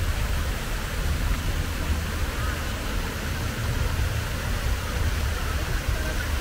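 Outdoor city street ambience: a steady low rumble with an even hiss over it and no distinct events.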